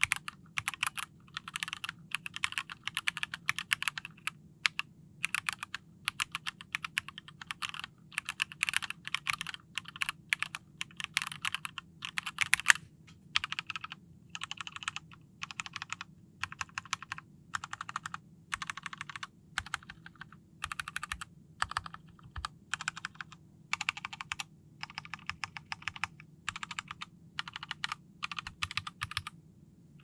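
Typing on a plateless split mechanical keyboard with stock Gateron Ink Black linear switches and GMK keycaps: quick runs of keystroke clacks broken by short pauses, with one sharper, louder click about halfway through.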